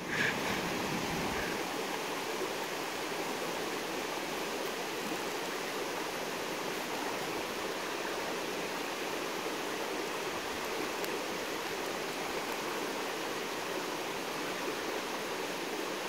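Steady rushing of river water flowing over rocks, an even noise with no change throughout.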